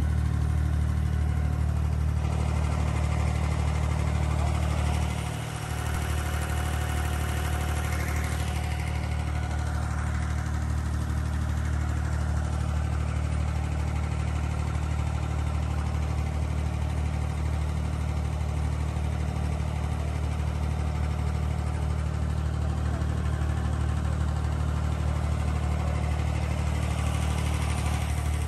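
Inboard diesel engine of an abra (a wooden water taxi) running steadily under way, a constant low drone.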